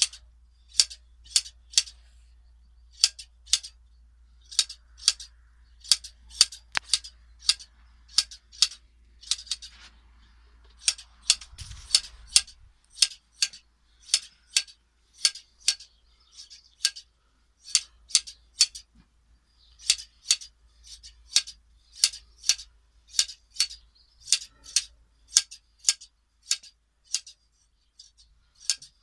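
Scissor blades snipping through a sheep's wool during hand shearing: crisp clicks, about two a second, coming in short runs of two to four cuts. About twelve seconds in there is a brief rustle and a soft thump.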